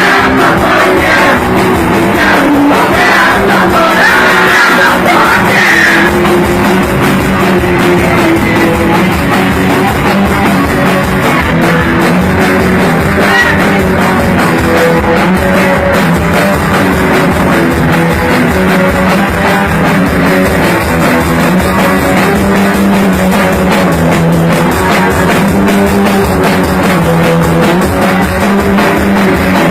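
Punk rock band playing loud and steady, with drums and a singing voice.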